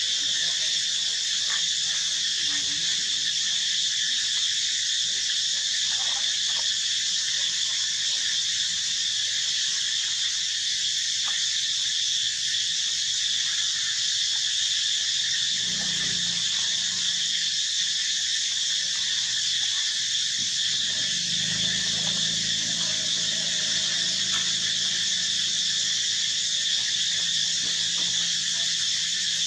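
Steady, high-pitched insect drone, as from a chorus of cicadas or similar insects. A short low sound comes about halfway through, and a longer, fainter low sound a few seconds after it.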